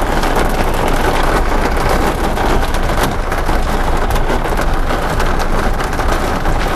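Hailstorm: hailstones and heavy rain pelting down in a dense, continuous clatter of many small impacts.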